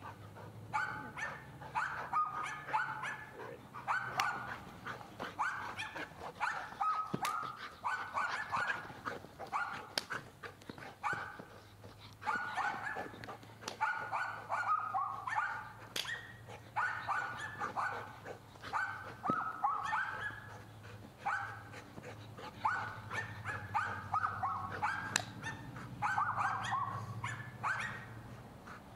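A standard schnauzer barking in quick runs of several barks, again and again, with a low steady hum underneath.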